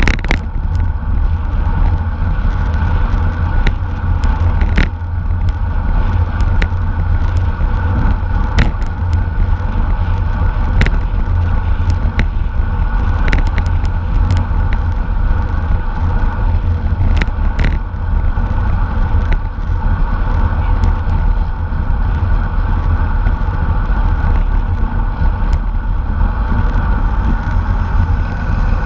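Heavy wind rush on a bicycle-mounted camera's microphone during a road race, over a steady hum of tyres and drivetrain, with scattered sharp clicks and knocks from the bike.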